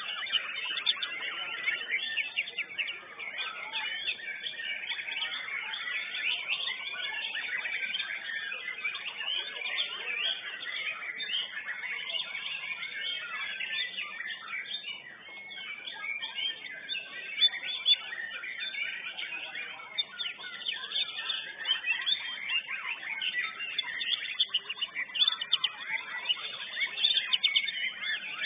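White-rumped shama (murai batu) singing: a dense, unbroken run of quick chirps and rapidly changing phrases.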